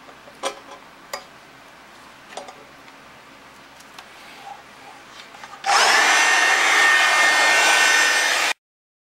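A few light knocks and handling clicks, then a hand-held electric blower switched on about two-thirds of the way in, running loud and steady with a whine. It cuts off abruptly near the end.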